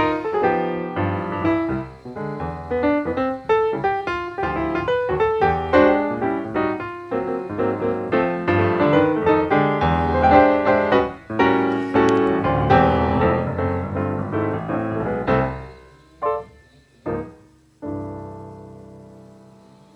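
Background piano music, a busy run of notes that thins out near the end into a few separate notes and a final chord fading away.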